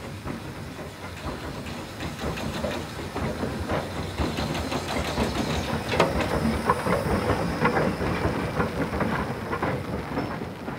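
Peckett 0-4-0 saddle tank steam locomotive passing: a quick run of exhaust beats with steam hissing. It builds to its loudest about six seconds in and fades near the end.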